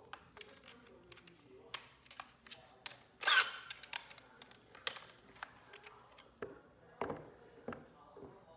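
Clicks and knocks of a cordless drill being handled and made ready, with one brief louder noisy burst a little over three seconds in.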